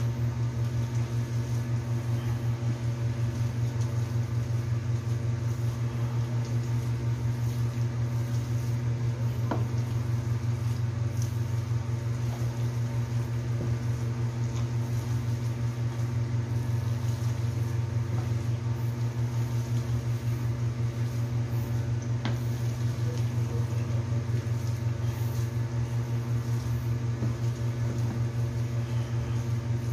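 Steady low electrical hum from a running motor or appliance, with a few faint scrapes of a utensil stirring rice in a pan.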